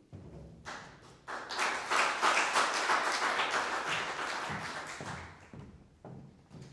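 Audience applauding: scattered claps about a second in swell into steady clapping, then fade away after about five seconds.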